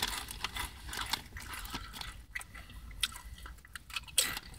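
Tapatio Doritos tortilla chips being crunched and chewed, in a run of short, irregular crisp crackles.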